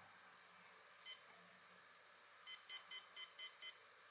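Electronic button beeps from a Hama LCD desk thermometer/clock, each one acknowledging a button press while the hour is stepped through during clock setting. There is one short, high beep about a second in, then a quick run of about six beeps.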